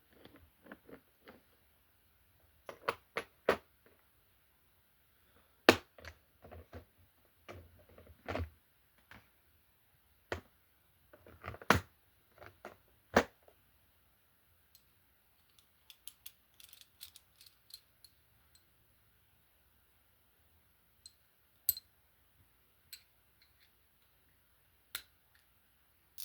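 Irregular metallic clicks and knocks of a pipe wrench being handled and worked, with a few louder knocks and quiet gaps between them.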